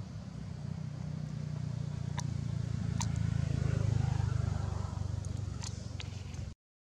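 A motor vehicle passing: a low rumble that builds to its loudest about four seconds in and then fades, with a few sharp clicks over it. The sound cuts off abruptly just before the end.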